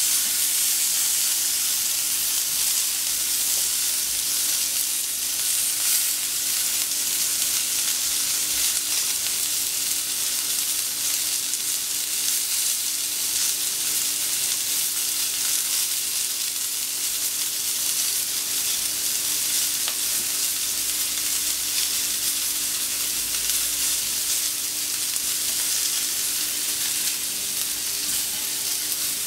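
Sesame-crusted tuna blocks sizzling steadily on a hot steel plancha as they are seared on each face for a rare tataki. Now and then a steel spatula scrapes the plate as the pieces are turned onto their sides.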